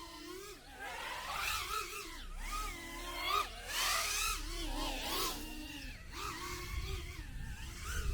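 Small electric motors of a micro FPV racer whining, their pitch rising and falling constantly with the throttle, with short rushes of air noise about four and five seconds in.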